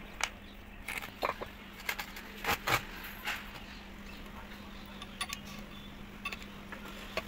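Metal hand tools and motor parts clinking and tapping: a scattering of sharp clicks and knocks, irregular and loudest in the first three seconds, over a faint steady hum.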